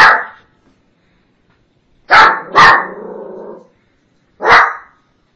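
A Shih Tzu barking aggressively in short, separate barks: one at the start, two close together about two seconds in, and one more near the end. It is alarm barking set off by noises outside.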